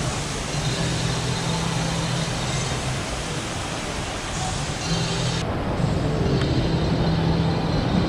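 Steady rushing background noise of a large indoor shopping mall, with a low droning hum underneath. The high hiss drops away about five and a half seconds in.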